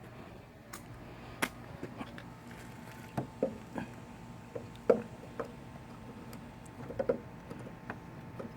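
Scattered light clicks, taps and squeaks of a plastic air-duct insert with a soaped rubber ring being handled and pressed into a car headlight's intake opening. About a dozen irregular knocks, the loudest about five seconds in, over a faint steady hum.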